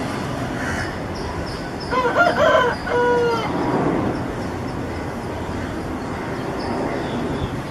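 A rooster crows once, about two seconds in: a wavering first part, then a held note that falls away, over a steady background rumble.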